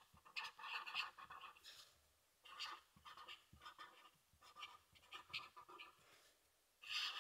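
Marker pen drawing in short, irregular strokes, the felt tip scratching faintly over the page, with a louder stroke near the end.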